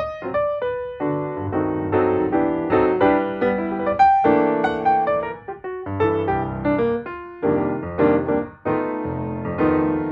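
Background music played on piano: a light melody over chords, one note after another with no break.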